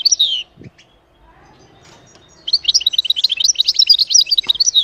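European goldfinch singing a fast, tinkling twittering song of many short high notes. It breaks off about half a second in, goes quiet for about two seconds, then resumes.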